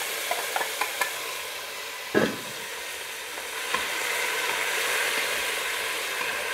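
Sliced lean pork sizzling in hot oil in a pot as it is stir-fried with chopsticks. A few light clicks of chopsticks scraping metal come in the first second, and a metal bowl is set down with a loud clang about two seconds in.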